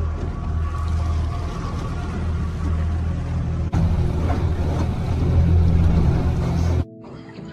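Boat's outboard motor running steadily at low trolling speed, a low drone with water noise over it. It steps louder a little over a third of the way in and cuts off abruptly near the end, giving way to a quieter sound.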